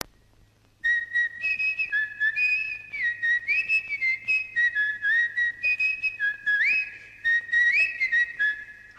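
A whistled tune in short, rhythmic notes that hop between a few pitches with quick upward slides. It starts about a second in and ends with a fast rising glide.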